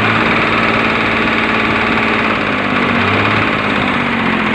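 Swaraj 744 tractor's three-cylinder diesel engine running at raised revs with a 'kat-kat-kat' knock from inside the engine. The knock is an abnormal noise that comes only when the engine is revved, and the mechanic traces it to the number 2 piston.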